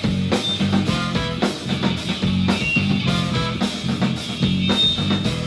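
Live band playing an instrumental break: drum kit with a steady beat of kick and rimshot hits over bass and guitar.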